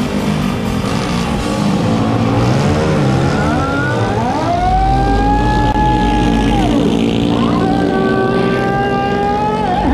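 Racing long-tail boat engines running, then revving up hard about four seconds in and held at a high, steady pitch at full throttle; the pitch falls away, climbs again and holds, then drops just before the end.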